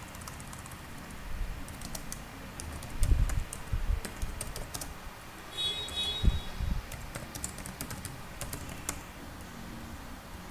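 Typing on a computer keyboard: irregular key clicks as a line of text is typed, with a few heavier dull thumps, the loudest about three seconds in and just past six seconds. A brief high tone sounds just before the second thump.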